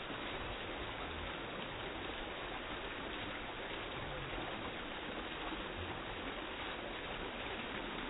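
Water from a small artificial rock waterfall splashing steadily into a shallow garden pond basin.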